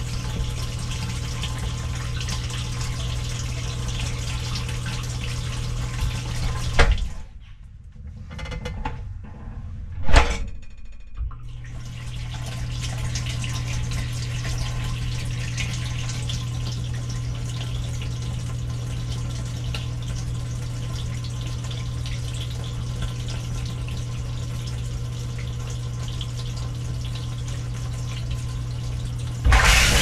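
Dishwasher starting its cycle, heard from inside the tub: a steady low hum with water running. The hum stops for a few seconds about seven seconds in, with a sharp knock about ten seconds in, then starts again. Near the end the spray arms start and water sprays loudly against the camera.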